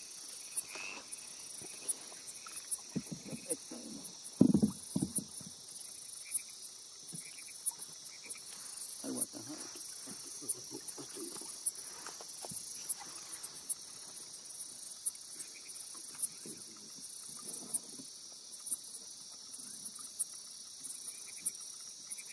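Night insect chorus: a steady high-pitched trill with sharp clicks roughly once a second. A few brief knocks and rustles from handling in the canoe, the loudest about four and a half seconds in.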